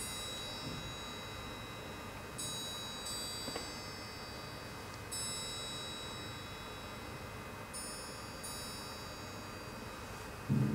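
High metallic chimes from the orchestra's percussion, struck softly about six times, singly and in quick pairs, each left to ring and fade. Low string notes come in just before the end.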